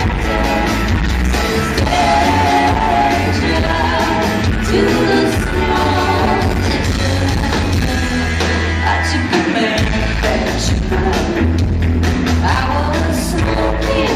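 A rock band playing live, loud, with a woman singing lead over bass, drums and guitars.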